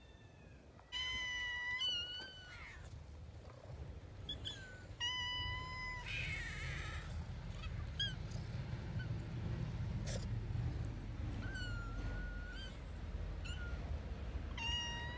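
Cats meowing again and again: a run of separate, high-pitched meows, the loudest about a second in, about five seconds in and at the very end, with shorter, softer meows between.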